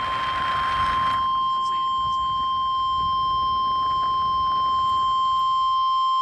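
Weather radio alert tone: one steady, unbroken beep signalling a National Weather Service tornado watch message. A hiss fades out in the first second.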